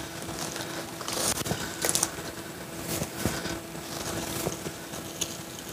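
A 1.5-inch-mesh gill net and its pull rope being handled and paid out into the water: scattered rustling and scraping sounds, irregular and short, the loudest about a second in and again near two and three seconds in.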